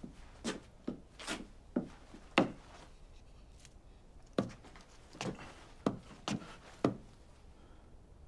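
Footsteps and the taps of a wooden crutch on a wooden floor in a small room: about ten uneven knocks, with a short pause a little after the middle.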